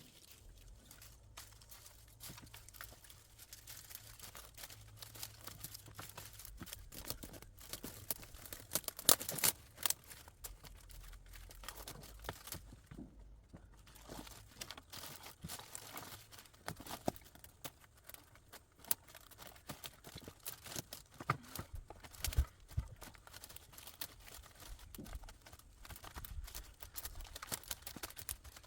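Irregular rustling and crinkling with many small clicks and knocks, the loudest a cluster about nine seconds in.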